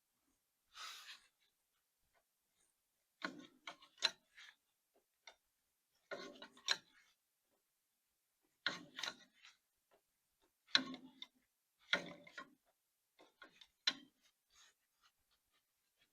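Metal wrench clinking and scraping against a stubborn power steering line fitting, in short clusters of sharp clicks every second or two as the fitting is worked loose.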